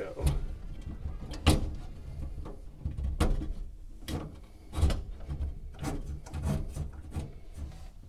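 Scattered knocks, clicks and rustling as a wiring harness is fished by hand through the channel under a Ford Model A's fuel tank. The loudest knock comes about one and a half seconds in, with others about every second after it.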